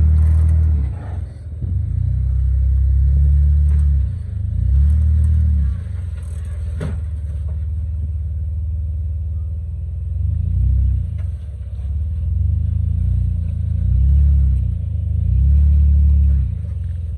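Jeep Wrangler engine and exhaust rumbling as it crawls over boulders, revving up and easing off in short pushes every second or two. A single sharp knock about seven seconds in.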